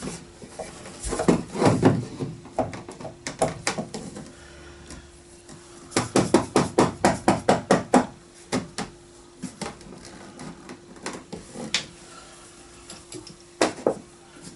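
Knocks and clatter of a mounting bracket being fitted to a wall panel, with a quick even run of about a dozen clicks around the middle, about six a second, and single knocks before and after. A faint steady hum sits underneath.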